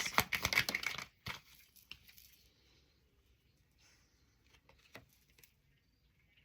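Tarot cards being handled: a brief flurry of rustling and snapping for about the first second, then a few faint separate taps as cards are set down.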